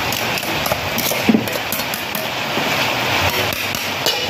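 Fried tofu and freshly added chopped water spinach sizzling in a hot wok, a steady hiss with a few light metal knocks.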